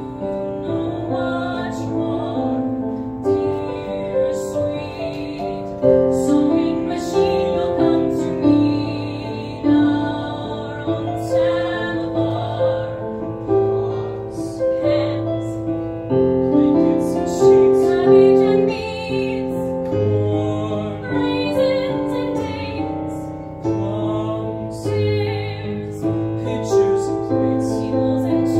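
A woman singing a show tune with vibrato over piano accompaniment, live in a small theatre.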